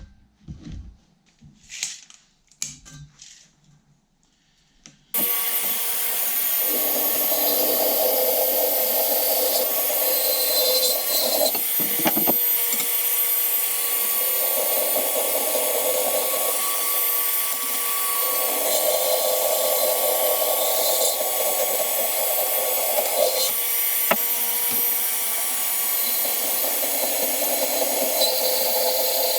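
A few light knocks and handling sounds, then about five seconds in a power tool starts suddenly and runs steadily and loudly with a constant whine and hiss.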